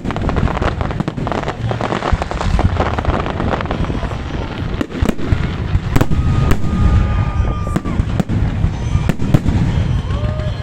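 Fireworks display: a dense run of bangs and crackles over a continuous low rumble, with a few brief whistling tones in the second half.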